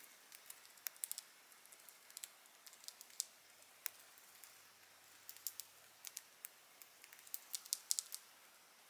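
Budgerigars biting and chewing dry seagrass: irregular crisp crunching clicks, some in quick clusters.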